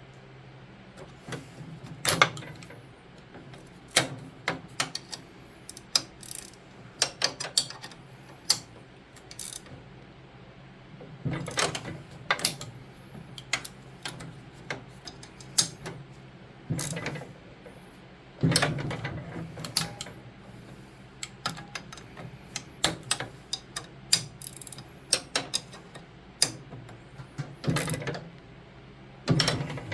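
Ratchet wrench clicking in short runs with clinks of metal tools as the snowblower's friction wheel bolts are snugged up, over a low steady hum.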